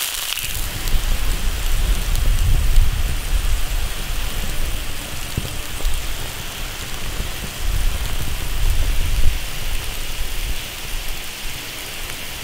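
Tomato broth boiling hard in an iron wok: a steady bubbling hiss with a low rumble underneath that eases near the end.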